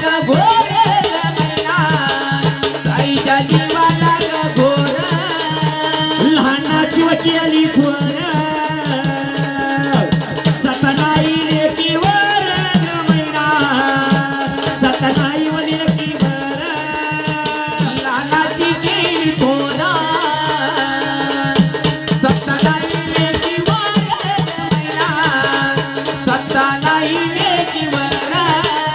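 Instrumental interlude of Marathi folk music: drums and rattling percussion keep a quick beat under a melody line.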